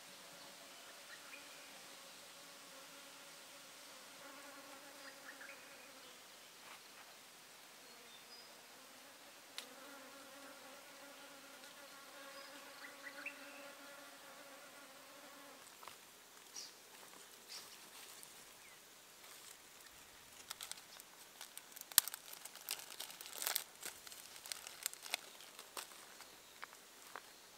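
A flying insect buzzing in two stretches of about six seconds each, a steady hum that drifts a little in pitch. In the second half comes a scattered run of sharp snaps and crackles, the loudest about two-thirds of the way through.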